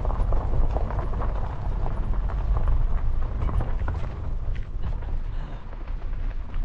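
Car tyres rolling over a gravel dirt road: a steady low rumble with frequent small ticks of stones crunching and pinging under the wheels.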